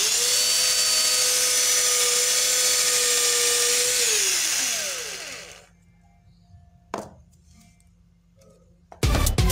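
Cordless drill motor running at a steady high speed as the bit bores through a small wood block, then released about four seconds in and spinning down with a falling whine over the next second or two.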